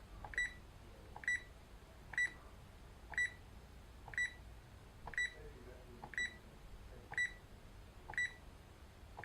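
Texecom Premier Elite alarm keypad giving a short high beep at each press of a scroll button, about ten presses roughly a second apart, stepping through the menu options. Each beep comes with a faint click of the key.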